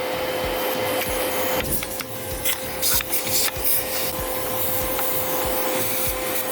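Vacuum cleaner running through a narrow 8 mm rubber hose, a steady whine over a wide hiss, sucking up loose carbon deposits from around a diesel injector with scattered scratchy clicks of debris.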